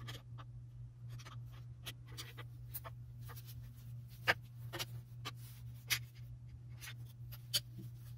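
Steel picks and a flat-bladed tool scraping and clicking against the retaining snap ring and clutch plates inside a GM 6T45 six-speed automatic transmission case, in irregular light ticks and scrapes, while the 1-2-3-4 clutch backing plate snap ring is being pried loose. A steady low hum runs underneath.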